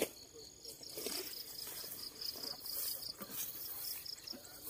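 An insect calling in a rapid run of short, high, evenly spaced pulses that stops about three seconds in, over faint rustling of grass.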